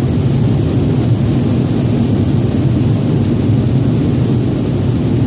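Steady, loud cockpit noise of an airliner on approach with its landing gear down: a dense rush of airflow and engine noise, with a faint steady high whine above it.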